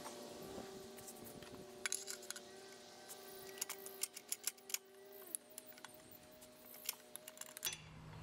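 Faint, quick metallic clicks and clinks of a pipe wrench on a rusted exhaust pipe held in a vise, the wrench slipping on the outside of the pipe, over a faint steady hum.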